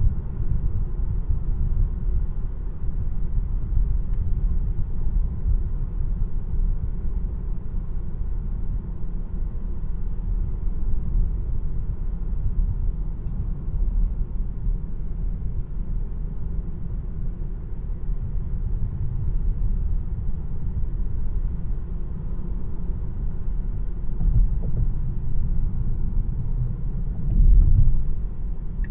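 Steady low road and tyre rumble inside the cabin of a 2026 Tesla Model 3 RWD electric car on the move, with no engine note, and a brief louder swell near the end.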